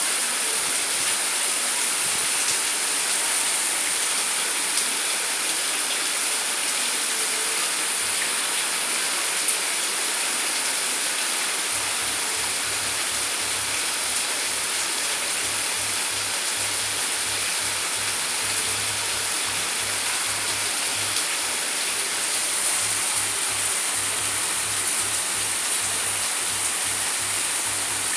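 Heavy rain falling steadily, an even dense hiss with a few faint ticks of drops.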